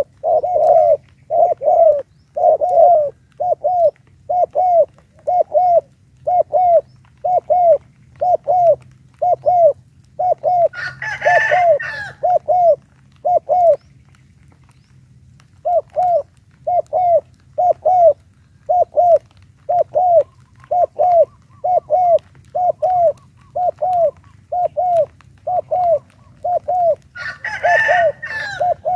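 Spotted doves cooing: a long run of short, rising-and-falling coos, about two a second, that breaks off for a couple of seconds around the middle. A rooster crows twice in the background.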